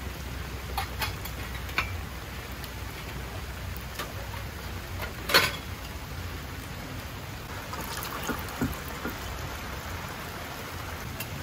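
Steady rain hiss with scattered drops ticking, one sharper tap about five seconds in.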